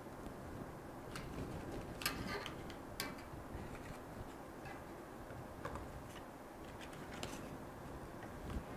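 Thick card being creased and folded along a steel ruler's edge: scattered sharp clicks and crackles at irregular intervals, loudest about two and three seconds in, over a faint steady hiss.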